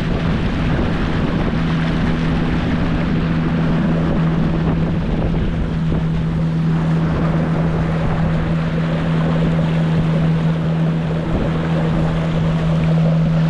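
Motor of a narrow passenger boat running steadily under way, a constant even hum, with water rushing along the hull and wind buffeting the microphone.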